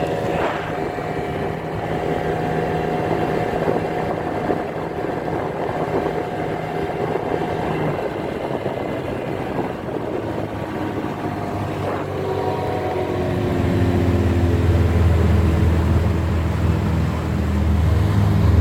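Small two-stroke outboard motor, a 20 hp Mercury, running while the boat moves. Its note shifts a couple of times partway through, then grows louder and deeper near the end.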